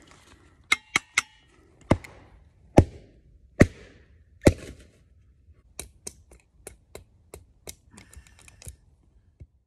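A wooden log used as a baton, knocking down hard on wood being split: about seven sharp, heavy strikes in the first five seconds. These give way to a run of lighter, quicker taps, about three a second.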